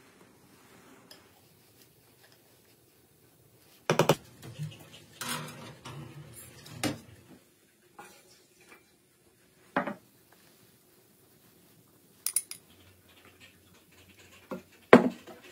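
Kitchenware clinking and knocking: dishes, an enamel pot and utensils handled and set down on a wooden table, in about six short separate clatters spread several seconds apart. The loudest comes about four seconds in, with another near the end.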